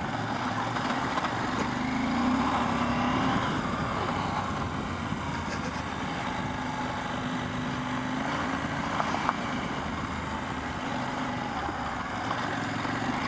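KTM 790 Adventure R's parallel-twin engine running steadily under way, over a haze of wind and road noise. The engine note rises slightly about two seconds in, then holds.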